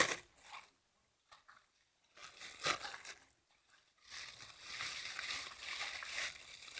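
A paper bag being cut into pieces with scissors and handled: a few sharp snips and crinkles, then steady paper rustling from about four seconds in.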